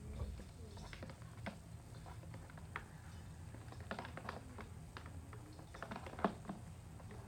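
Light, irregular plastic clicks and taps from handling a vacuum cleaner, such as unwinding its cord from the cord hooks before plugging it in, with one sharper click a little after six seconds. The vacuum's motor is not yet running.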